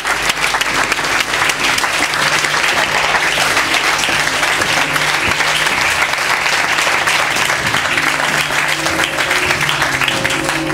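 Audience applauding steadily, a dense unbroken clatter of clapping. Near the end, church bells begin ringing faintly underneath as the clapping dies away.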